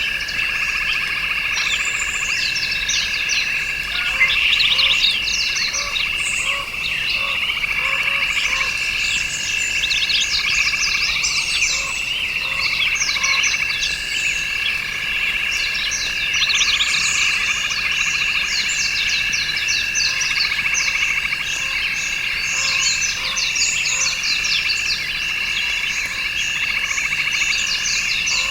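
Dense chorus of frogs and insects calling together: steady high trills underneath a constant stream of quick, high-pitched chirps.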